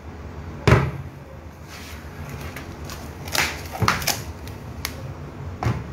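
Handling noises of a cling film roll and a metal baking tray on a countertop: a sharp knock about a second in, then lighter clicks and plastic rustles, over a steady low hum.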